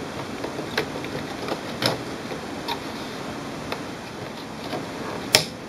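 Plastic clicks and taps as an HP 64 tri-color ink cartridge is pushed into an inkjet printer's cartridge carriage and latched. There are several light clicks, then one sharp, louder click near the end.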